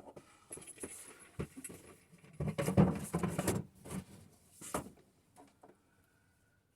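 Clattering and knocking of plastic parts being handled, in an irregular run that is busiest in the middle and dies away near the end: the pieces of a manual vacuum oil and fluid extractor kit.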